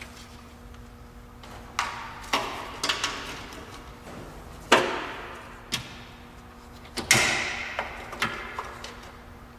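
Irregular clicks, knocks and rattles of plastic connectors and wiring being handled and fitted in a car's engine bay while an HID headlight kit is mocked up. The loudest knock comes a little under five seconds in, and one about seven seconds in rattles on for over a second.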